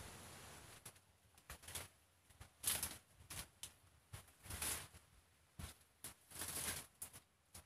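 Irregular rustling and crackling of leaves and stalks as a person pushes through and handles tall leafy plants: a dozen or so short brushes and snaps, some lasting about half a second.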